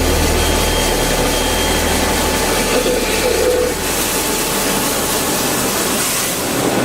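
CNC drilling-milling machine running: a steady mechanical noise, with a low hum that fades out about two seconds in.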